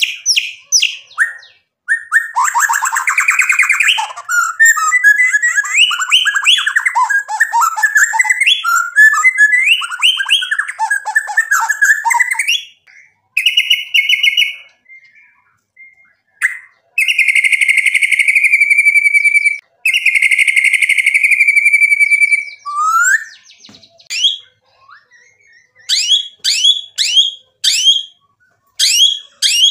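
White-rumped shama (murai batu) in full song: a long, rich phrase of rapidly changing notes, then pauses broken by long buzzy trilled notes, and near the end a quick run of sharp downslurred whistles.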